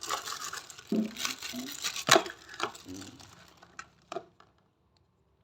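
Plastic packaging of nebulizer face masks crinkling and rustling as they are handled, with a few sharp plastic clicks; the handling stops a little after four seconds in.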